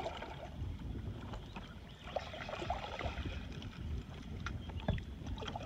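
Wind rumbling on the microphone and water lapping at a small fishing boat's hull, with a few sharp knocks against the boat near the end and faint muffled voices midway.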